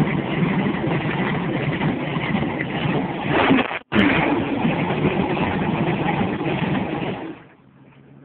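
Engine of a modified Chevrolet Vega, with its engine exposed at the front, running and being revved with rising and falling pitch. The sound cuts out for an instant a little under four seconds in, then falls away sharply about seven seconds in.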